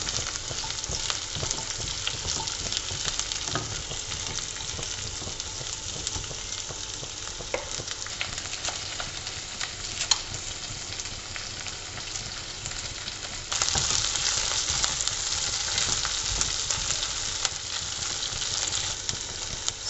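Chopped onion, green chillies, ginger and garlic sizzling in hot oil in a non-stick kadai, with the occasional scrape of a silicone spatula stirring them. The sizzle gets suddenly louder about two-thirds of the way through.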